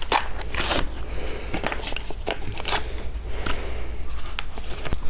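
Packaging of new motorcycle brake pads being opened by hand: irregular crinkling and crackling.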